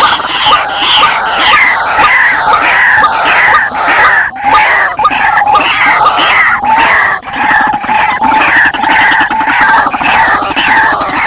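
Wild white-breasted waterhens (ruak-ruak) calling noisily, the call repeating over and over at about two a second. It is a lure call recording, of the kind played to draw in wild waterhens.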